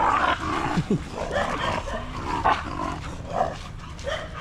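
Dogs barking and yelping in short, repeated outbursts.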